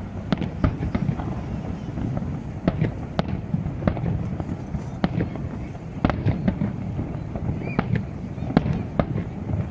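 Fireworks display: a dense, irregular series of sharp bangs and cracks over a continuous low rumble.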